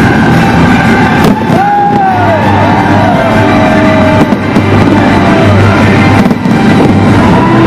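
Loud music mixed with fireworks going off, with two sharp bangs standing out, about a second in and again about six seconds in.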